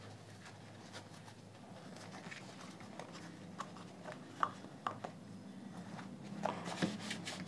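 Faint handling sounds of fingers pressing a faux-leather headphone ear pad onto its plastic ear cup: soft rustling with a few small clicks and creaks, most of them about halfway through and near the end, over a low steady hum.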